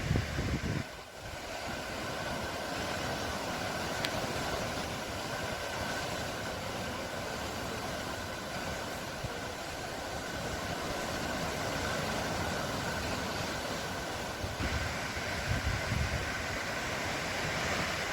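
Steady rush of sea and wind noise, with a faint steady whine running through it and a few low thumps near the end.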